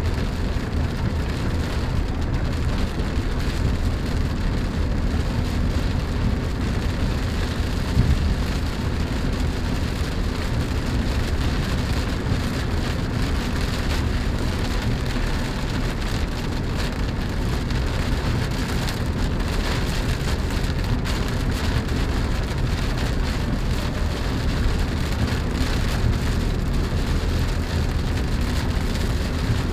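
Steady noise inside the cabin of a moving Chevrolet Spark: rain on the roof and glass over the low rumble of the car running along the road, with a single jolt about eight seconds in.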